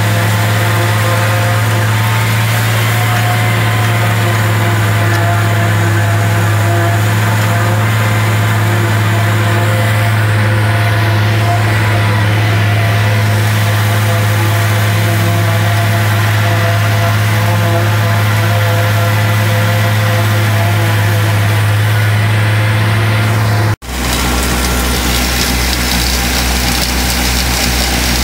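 An engine running steadily at constant speed, a strong low hum with many steady tones above it. About three-quarters of the way through it cuts off abruptly to a different steady machine sound: a Gehl silo blower run by a Case 830 tractor.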